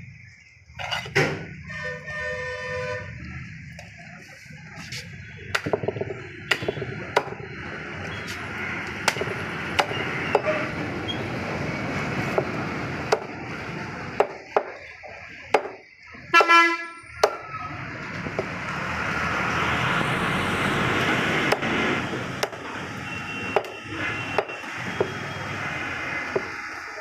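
Heavy cleaver chopping through lamb heads and bone on a wooden block: repeated sharp chops at an irregular pace. Vehicle horns honk about a second in and again loudly around the middle, and traffic swells past a little later.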